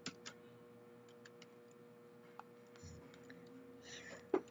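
Computer keyboard keys clicking: a couple of key presses right at the start, scattered light ticks, and one sharp, louder click near the end, over a faint steady hum.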